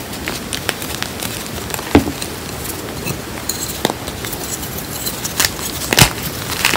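Hands crushing and squeezing blocks of reformed gym chalk (calcium and magnesium chalk mixed with cornstarch) into loose powder: dense, crunchy crackling and crumbling, with two sharper snaps as chunks break, about two seconds in and near the end.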